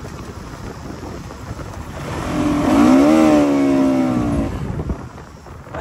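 Motorcycle on the move, with wind rushing over the rider's microphone. About two seconds in, a pitched sound rises and then holds for a second or two before fading.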